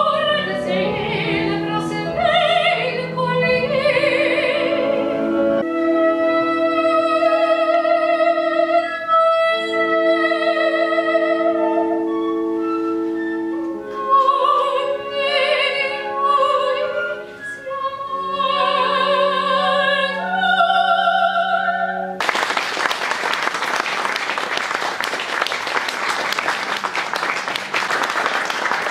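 Operatic singing, with long held notes and vibrato over sustained instrumental accompaniment, breaking off abruptly into loud applause for the last several seconds.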